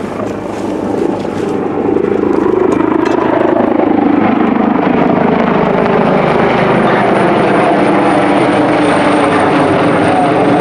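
Los Angeles City Fire Department firefighting helicopter flying low overhead. Its rotor and engine noise swells about two seconds in and then holds steady, with a thin high whine on top.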